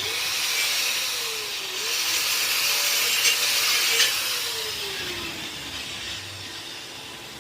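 Handheld power tool running with a strong hiss for about four seconds, then switched off and winding down with a slowly falling hum.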